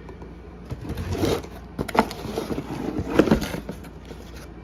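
Handling noise as a rifle is unboxed: scraping with a few sharp clicks and knocks, the loudest a pair a little past three seconds in.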